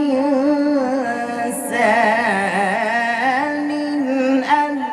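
Male voice reciting the Qur'an in the melodic tajweed style, drawing one word out into a long, wavering, ornamented line, with the next word starting near the end.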